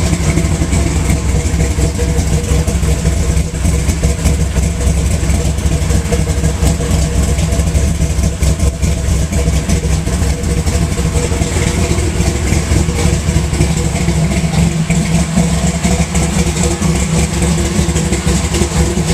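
Supercharged 427 V8 with a 6-71 blower in a 1968 Camaro pro street car, idling steadily.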